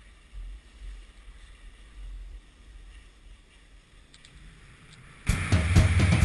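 Wind rumbling unevenly on the microphone of a camera carried down a ski run, with soft gusts and a faint hiss. About five seconds in, loud rock music with heavy drums cuts in.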